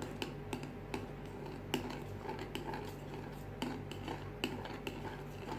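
A spoon stirring glue and shaving-foam slime mixture in a bowl, with irregular light clinks and ticks of the spoon against the bowl.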